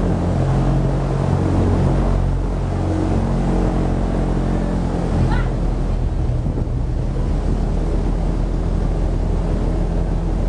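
Airboat under way, its Cadillac 500 cubic-inch big-block V8 and propeller running steadily, the engine note shifting slightly in pitch a few seconds in. Wind noise mixes in over the drone.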